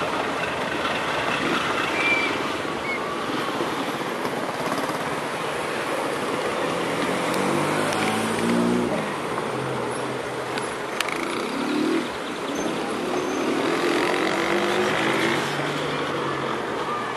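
GE C30-7A diesel-electric locomotive moving at low speed over curved track and switches: its diesel engine running steadily, with the engine note rising and falling a few times in the middle and later on.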